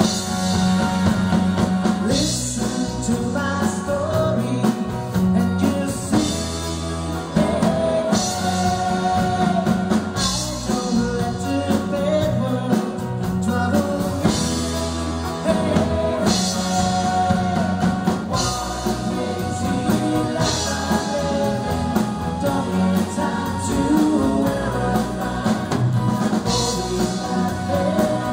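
Live pop-rock band playing with singing: electric guitars, bass guitar and drum kit backing vocals.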